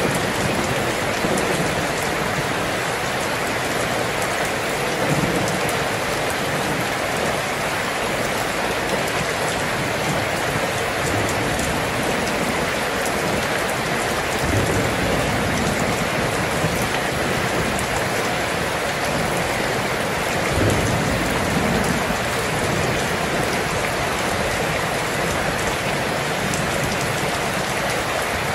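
Steady heavy rain, an even hiss of drops, with low rumbles of thunder now and then, the clearest about twenty seconds in.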